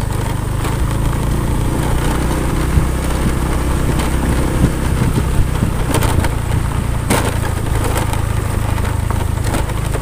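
Small motorcycle engine running steadily while riding along a rough dirt track, with several sharp knocks and rattles from the bumps.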